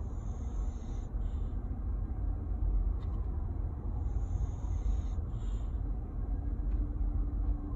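Slow, regular snoring breaths during sleep: a hissy breath of about a second, then a shorter puff, repeating about every four seconds, over a steady low rumble.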